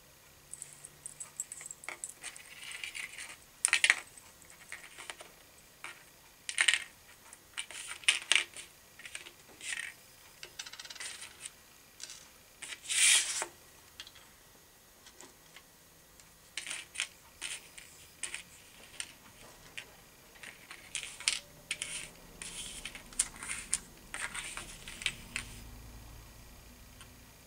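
Light metallic clicks and clinks of a small wire fishing rig, its wire arms, clips and spinner blade knocking together as it is handled and fastened by hand. The clicks come at irregular intervals, with a few sharper clinks.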